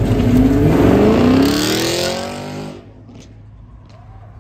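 Chevrolet Camaro accelerating hard away from the curb, its engine revving with a steadily rising pitch. The sound falls away sharply after nearly three seconds.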